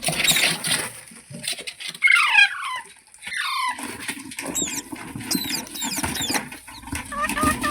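Green ringneck parrot calling: two sharp falling squawks about two and three seconds in, then a quick run of short repeated chirps, several a second, near the end.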